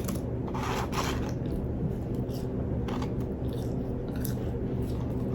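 Paper fast-food packaging rustling and crinkling in short, irregular bursts as the food is handled, over a steady low hum.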